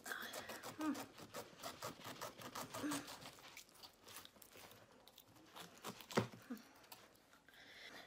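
A knife cutting a pineapple: a faint, irregular run of crisp clicks and scrapes, with a sharper knock about six seconds in.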